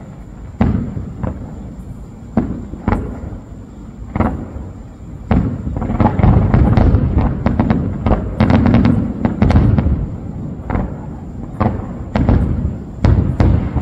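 Aerial fireworks shells bursting: a few separate bangs about a second apart, then from about five seconds in a dense barrage of rapid, overlapping bangs with a rumbling low end.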